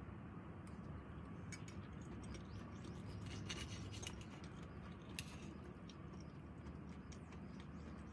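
Metal cutlery faintly scraping and clicking against a ceramic plate while a knife and fork cut baked whelk meat, with a cluster of scrapes about three to four seconds in, over a low steady room hum.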